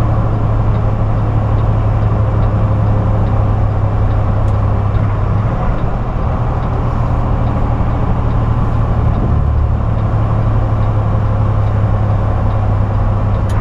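Semi truck's diesel engine droning steadily with road and tyre noise, heard from inside the cab while cruising at highway speed.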